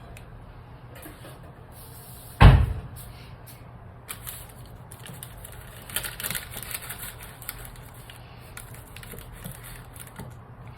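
A single loud thump about two and a half seconds in, followed by scattered light clicks and rustling of things being handled.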